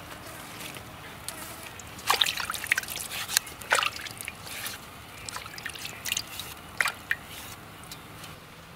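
Water in a metal strainer bowl of soaking brinjals, splashing and dripping as it is handled: a quick run of small splashes and drips starting about two seconds in and dying away near the end.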